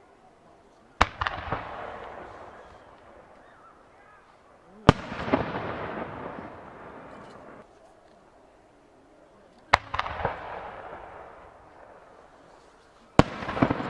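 Aerial firework shells bursting: four sharp bangs a few seconds apart, each followed by a rolling echo that dies away over two or three seconds.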